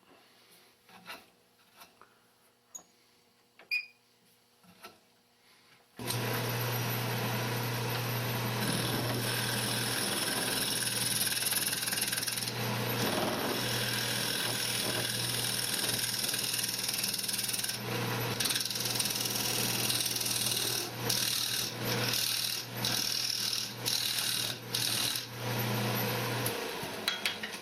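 Wood lathe turning a frame blank, with a turning tool cutting into the face of the spinning wood: a steady low hum under a dense hiss of cutting. It starts abruptly about six seconds in after a few faint clicks, and in the last third the cut breaks off and resumes in short passes before stopping near the end.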